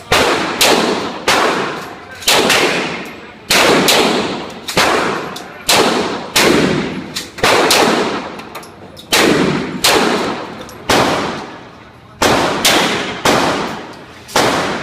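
Pistol shots fired in a long string, roughly one to two a second at uneven spacing. Each is a sharp crack followed by a long echo off the walls of the indoor range.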